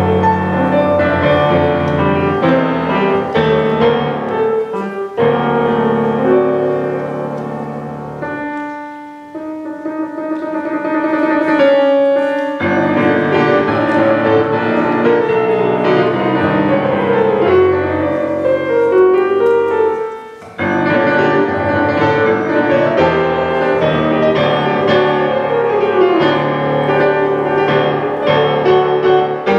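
Solo grand piano playing a waltz, with dense runs and chords. About a third of the way in it thins to a quiet passage of a few held notes, then builds back, with a brief pause about two-thirds of the way through.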